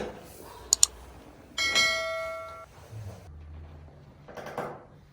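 Two quick, sharp cracks from a chiropractic spinal adjustment, followed about a second later by a bell-like ding that rings for about a second and fades.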